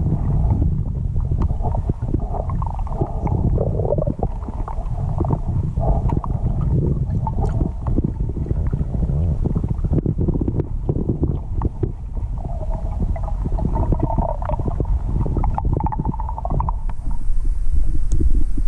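River current heard underwater: a steady, muffled low rumble with gurgling and scattered small clicks and knocks. Near the end a higher hiss joins in and it grows louder.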